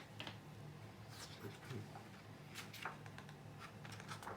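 Faint room tone: a low steady hum with a few soft clicks and rustles scattered through it.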